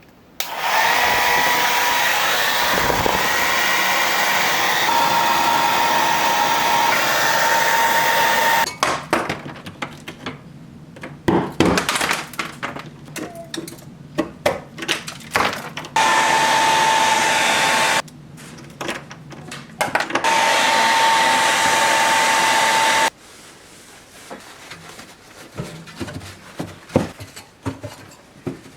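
Handheld hair dryer blowing with a steady whine, switched on three times in long and short stretches, melting ice built up around a refrigerator's cooling coil. Between the runs come scattered knocks and clicks.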